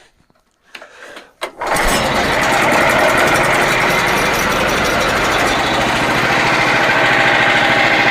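Frontier OS27 bandsaw mill's small gasoline engine starting up: a few clicks, then about two seconds in the engine catches suddenly and runs steadily.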